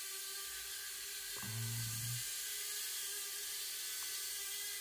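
Holy Stone HS210 mini toy drone's propellers whirring with a steady hiss, with a short low hum about a second and a half in.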